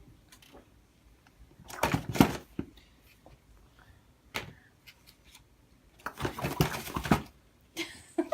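A young child making silly noises with his tongue and mouth in a few short bursts: one around two seconds in, a brief one past four seconds, and a longer one of about a second past six seconds.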